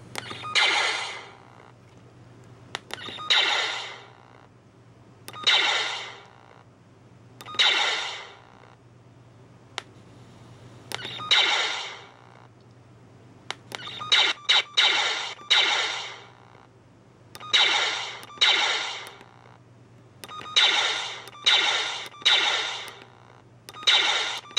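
A 'fire' sound effect played from a WTV020-SD-16P sound module through a small 3+3 W amplifier and speakers, set off over and over by a push button: a dozen or so short bursts, each starting suddenly and fading over about a second, unevenly spaced and coming faster in the second half. A steady background hum from the setup runs under them, with faint clicks between bursts.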